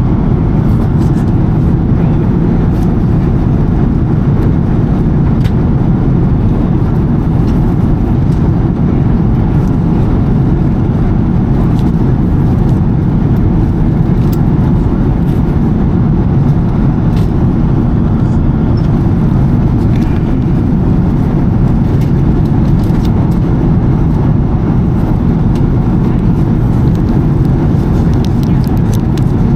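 Steady roar of a Boeing 777-300ER cabin in flight: engine and airflow noise, even and unbroken, with a few faint clicks.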